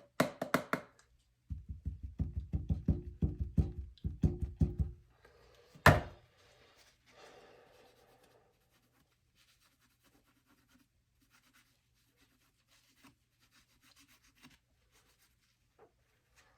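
A damp sponge with gritty cleanser powder scrubbed back and forth fast along a steel knife blade, working at a rust spot. About six seconds in there is a single sharp knock, followed only by faint small handling ticks.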